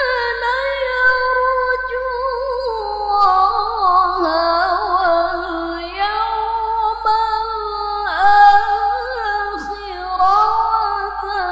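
A woman reciting the Qur'an in the melodic tilawah style into a microphone: long, high held notes with quick wavering ornaments. The melody steps down a few seconds in and climbs again near the end.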